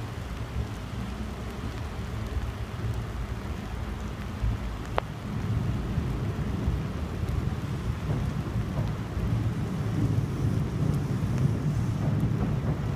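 Steady rain falling, under a low rumble that grows louder about halfway through.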